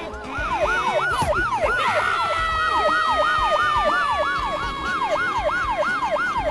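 Police siren in a fast yelp, its pitch rising and falling about three times a second, with a second steady tone sliding slowly lower from about two seconds in, over a low rumble.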